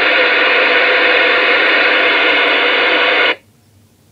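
Moonraker CB radio's speaker giving out loud static noise from the receiver, with faint steady whistles in it, until it cuts off suddenly about three seconds in.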